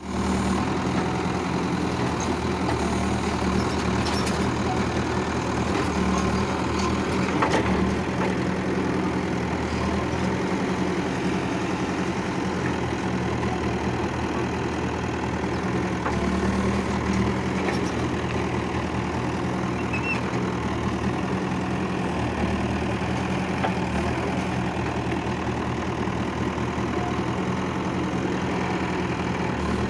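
Backhoe loader's diesel engine running steadily near idle, its note shifting briefly twice, about a quarter of the way in and again just past halfway, with a few faint clicks.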